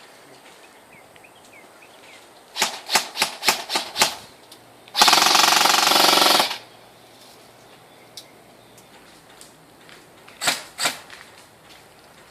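Airsoft guns firing: a quick string of single shots, then a full-auto burst of about a second and a half, then a couple more shots near the end.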